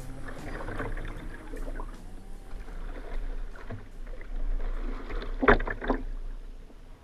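Kayak paddle strokes dipping and splashing in floodwater, with two sharper, louder splashes about five and a half seconds in.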